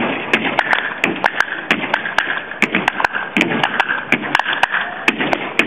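Rhythmic hand claps and percussive taps keeping time for a folk dance, about four a second and slightly uneven, with a faint held high note underneath.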